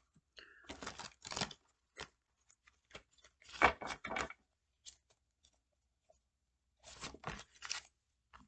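A deck of tarot cards being shuffled and handled: three rustling bursts of sliding cards, with a few soft clicks between them.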